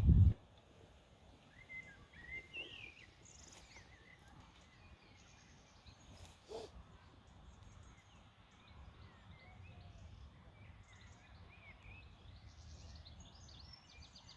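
Quiet riverside ambience with small birds chirping now and then. A low rumble cuts off just after the start, and there is a single soft knock about six and a half seconds in.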